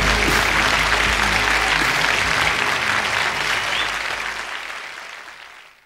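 Applause-like hiss over the last held low notes of a recorded song, the whole fading out steadily over the last few seconds.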